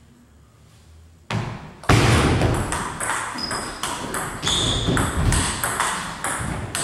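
Table tennis rally: the celluloid ball is struck by bats and bounces on the table in quick succession, with the hits ringing in a large hall. It is quiet for the first second or so before the serve, then fast strokes continue to the end.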